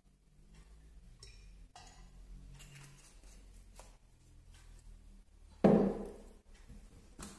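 A single sharp knock of a glass container set down on the kitchen worktop, about three-quarters of the way through, dying away quickly; a lighter click follows near the end, with faint handling noises before it.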